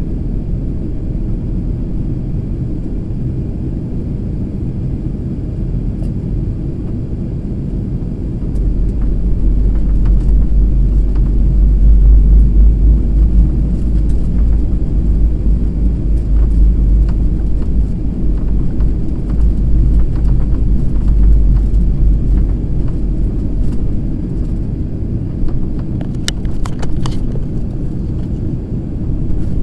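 Airliner cabin noise from a window seat: a steady low rumble of engines and airflow that swells about eight seconds in and eases back after about twenty seconds, with a few faint clicks near the end.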